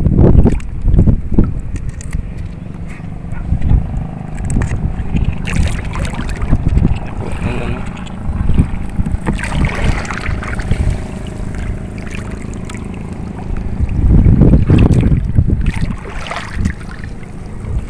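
Wind buffeting the phone's microphone in low rumbles, strongest at the start and again about three-quarters of the way through, over water sloshing around legs wading in shallow, weedy sea water.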